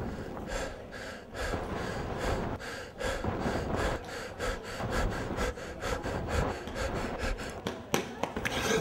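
A man panting hard and fast while running, with quick rhythmic footfalls. Near the end there are a couple of sharper knocks.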